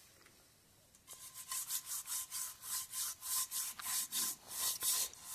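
Something being scrubbed clean by hand at the water's edge: a rhythmic rubbing of about four strokes a second that starts about a second in.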